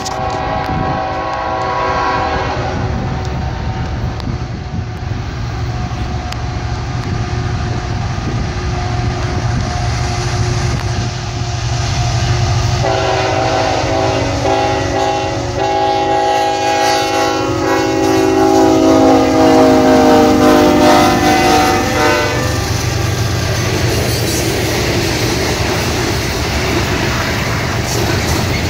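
CSX freight train led by a GE ET44AH diesel locomotive, its engine rumbling as it runs past. Its horn sounds a short blast at the start and a long blast from about 13 to 22 seconds in, the chord dropping in pitch as the locomotive passes. After that comes the rattle of the cars rolling by.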